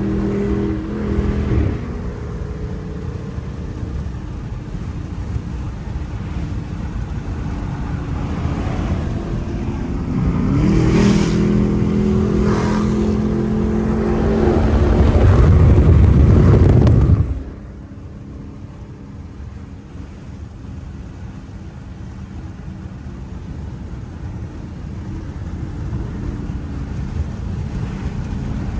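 Dodge Charger Hemi V8 engines running and revving. The pitch climbs about ten seconds in and builds to a loud, deep rumble that cuts off suddenly around seventeen seconds in. After a quieter stretch, the engine note returns near the end.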